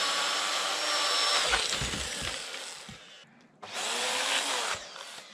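Chainsaw running at high speed, cutting wood. About a second and a half in it drops off, a few low thuds follow, and the saw revs briefly again about four seconds in.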